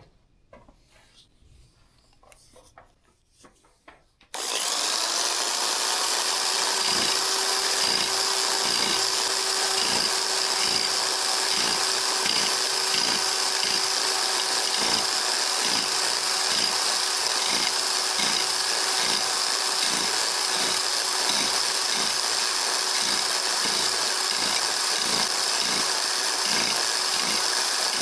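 Electric reciprocating power scraper (Biax) switching on about four seconds in and running loud and steady on a metal Bridgeport mill gib, with an even pulse from its strokes. It is knocking down the high spots marked with bluing to bring the gib flat.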